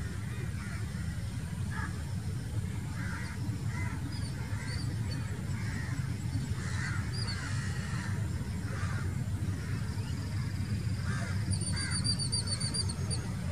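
Birds calling over and over with short, harsh calls about once a second, over a steady low rumble. A quick run of high chirps comes near the end.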